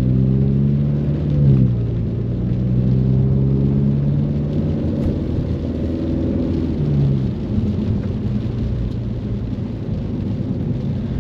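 Ford Mustang engine running under way, its note holding steady and then shifting in pitch a couple of times, over a steady wash of rain and tyre noise.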